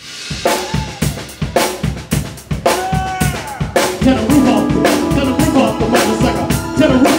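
Live band playing: a drum kit strikes heavy accented hits with cymbals about once a second, with a couple of short bending notes between them. About four seconds in, the rest of the band comes in with sustained chords under the drums.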